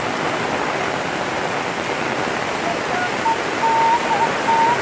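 Heavy rain falling steadily, a dense even hiss, with water running off roof eaves.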